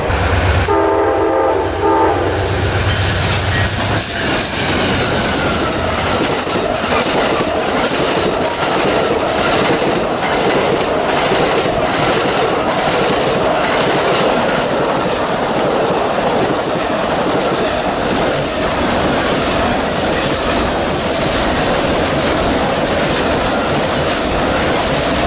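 A train horn sounds a short chord at the start over a locomotive's low engine hum, then the train passes close by: a steady, loud rumble of wheels with repeated clicks as they cross the rail joints.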